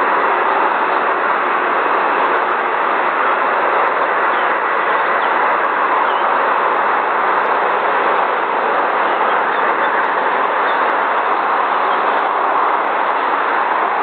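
Steady, unchanging rushing noise with no distinct events.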